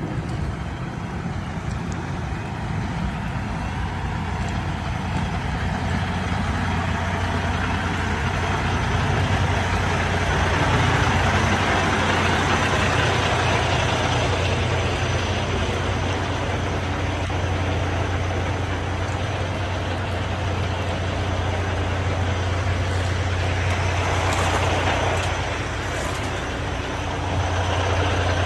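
A truck engine idling with a steady low hum, under a loud, even rushing noise that swells for a few seconds partway through.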